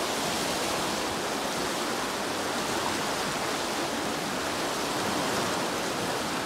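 Fast, turbulent water rushing through a concrete-lined canal where it leaves the Bhadra canal tunnel, a steady even rush. The strong flow is taken for water released from the Bhadra dam.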